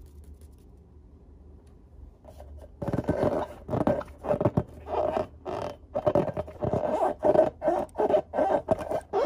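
Hands squeezing and rubbing a filled rubber balloon: a quick, irregular run of rubbery squeaks and squishes, several a second, starting about three seconds in.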